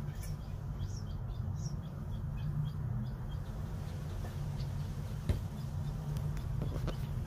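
King quail cheeping with short high chirps, several a second, that thin out after about three seconds, over a steady low hum. A few sharp clicks in the second half, as the birds peck at their ceramic food dishes.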